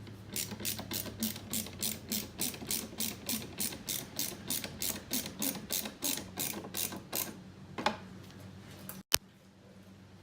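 Ratcheting driver with a T10 Torx bit clicking steadily, about four clicks a second for roughly seven seconds, as a screw is driven into the side-mirror turn-signal housing. It stops, with a single sharp click about nine seconds in.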